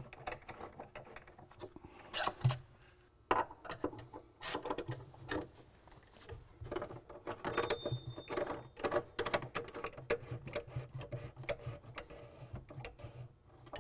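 Long, thin screwdriver turning a cabinet's leveling-leg adjuster, making a run of irregular clicks and scrapes.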